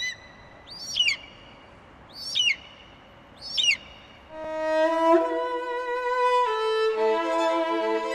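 Four sharp, high bird cries, each sweeping up and then down, a second or so apart. About four seconds in, bowed-string music led by a violin begins and carries on with sustained notes.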